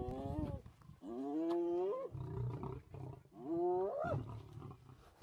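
Repeated drawn-out animal cries, each about a second long, their pitch sweeping upward at the end before breaking off, with a lower rumbling sound between two of them.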